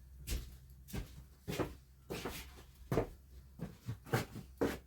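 A series of about ten light, irregular knocks and clicks over a faint low steady hum.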